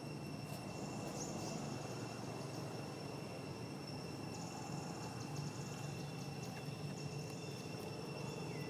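Outdoor insect chorus: two steady high-pitched tones, with a rapid higher trill that starts and stops in bouts every couple of seconds, over a low steady rumble of background noise.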